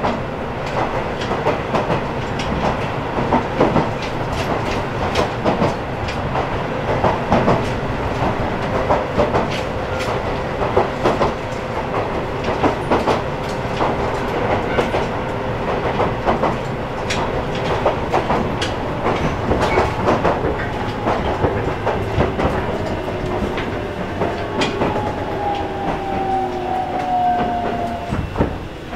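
Alpico Kotsu 20100-series electric train running, heard from inside the car: a steady rumble of wheels on rail with frequent sharp clicks from the rail joints. About 25 seconds in, the whine of its Toyo IGBT-VVVF inverter slides down in pitch as the train slows, and the running noise eases off.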